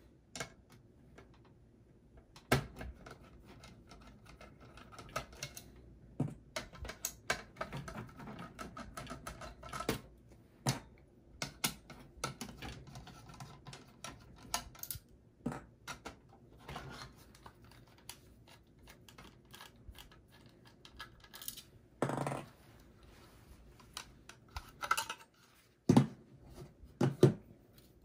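Small screws being backed out of a metal 2.5-inch drive bracket with a screwdriver, with scattered light clicks and metallic clinks and the handling of a plastic drive caddy.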